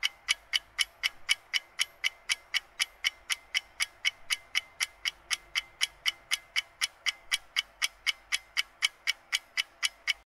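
Clock-ticking sound effect of a quiz countdown timer, an even run of sharp ticks at about four a second that stops suddenly as the timer reaches zero.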